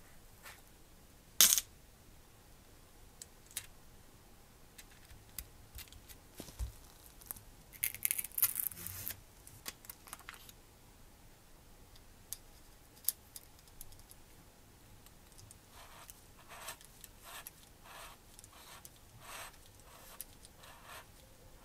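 Small metal parts of a miniature engine model kit being handled with tweezers and gloved fingers: sparse light clicks and taps, one sharp click about a second and a half in, and a short flurry of scraping and rattling around eight to nine seconds in as a small gear is picked out of a plastic box. Softer clicks follow near the end as the gears are fitted onto the metal timing cover.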